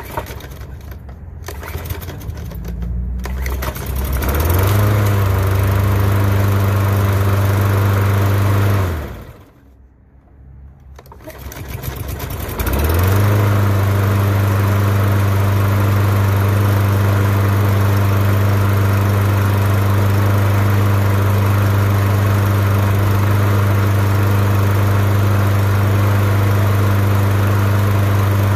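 Briggs & Stratton 6.25 OHV 150cc single-cylinder mower engine, freshly fitted with a new head gasket and adjusted valve lash, starts about four seconds in and runs steadily. It winds down and stops a few seconds later, is started again about three seconds after that, and then runs at a steady speed.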